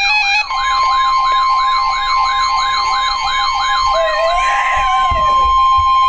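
Electronic emergency alert tones for a severe thunderstorm warning. A siren-like tone warbles up and down about three times a second over a steady alert tone that comes in about half a second in. The warble breaks off about four seconds in, leaving the steady tones.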